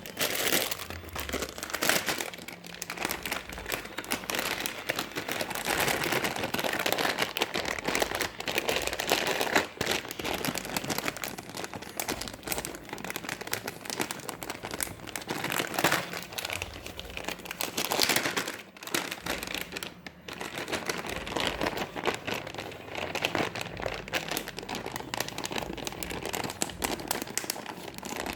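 Packaging crinkling and rustling as it is handled and opened, a dense run of small crackles with short pauses about ten seconds in and again near twenty.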